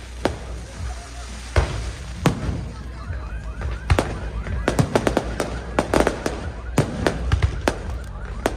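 Fireworks exploding: a string of sharp bangs at irregular intervals over a steady low rumble, coming thicker and faster in the second half.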